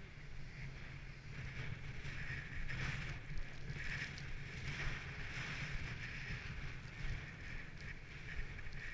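Snowboard sliding and carving over packed snow, a steady hiss that grows louder and eases off as the rider turns, with a low wind rumble on the microphone underneath.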